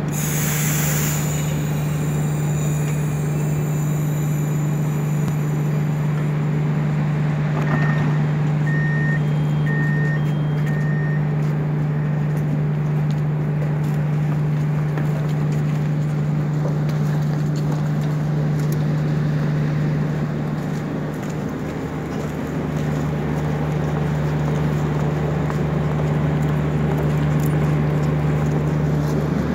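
Modernised diesel passenger train standing at a platform with its engine running, a loud steady low hum. A short hiss at the start, and four short beeps about eight to eleven seconds in.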